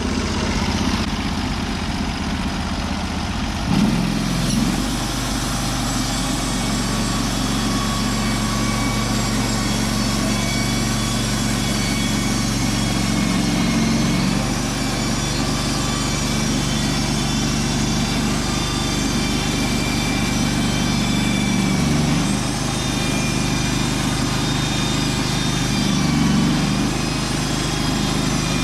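Engine-driven Norwood band sawmill running steadily, its band blade sawing lengthwise through a dead ash cant to cut boards. The engine note shifts about four seconds in.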